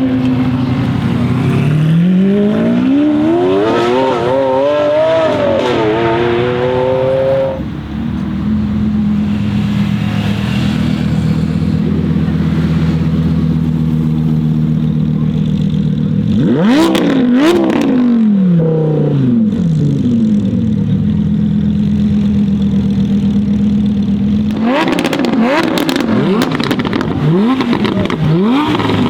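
Audi R8 V10 Performance's naturally aspirated V10 through an aftermarket Capristo exhaust. It accelerates with a rising pitch for the first several seconds, then settles to a steady idle. It blips its revs a couple of times about halfway through, and near the end revs up and down rapidly several times with crackles.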